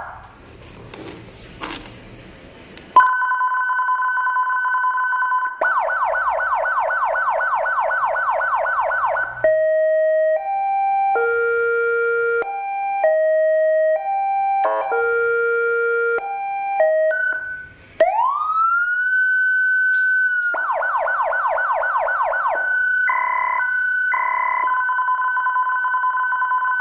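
Unitrol Omega V2 15-watt motorcycle siren running through its tone patterns. After a few quieter seconds of handling noise, it gives a steady two-tone sound, then a fast warble, then a stepped melody of short notes. It then glides up into a held wail, gives another fast warble and a few pulsed tones, and settles back into the steady two-tone.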